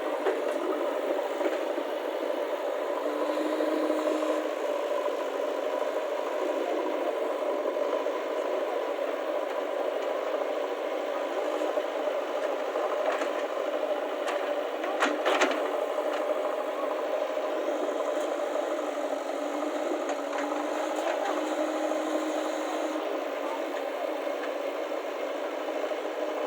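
A vehicle engine running steadily, with rattling and a few sharp clicks around the middle.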